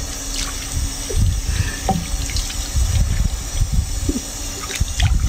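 Water splashing and trickling as a baby monkey's face is washed by hand, with repeated low bumps from handling close to the microphone.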